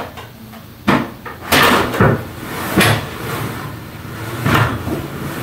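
MS3C-300TS evacuation stair chair being tipped over the top step and starting down carpeted stairs on its tracks: a string of about five dull knocks and clunks from the frame and tracks, spread over the seconds, over a steady low hum.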